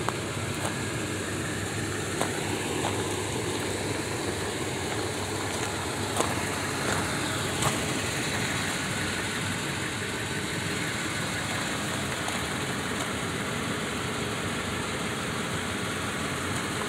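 Toyota Tundra pickup idling with a steady running noise, with a few faint clicks over it.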